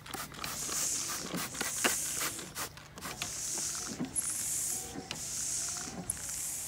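Windshield wipers on a school bus sweeping across wet glass, a regular swish about once a second. The blades pass the trimmed screw ends without the clicking they used to make.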